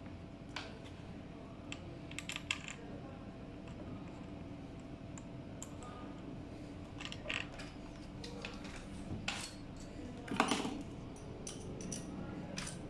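Scattered light clicks and small metallic knocks as the e-scooter's metal foot-pedal plate and its wiring are handled and set back in place over the battery bay, with the loudest cluster about ten seconds in.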